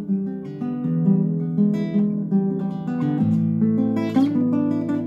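Acoustic guitar strummed and picked in a steady rhythm, a run of changing chords with a bass line under them, with no singing.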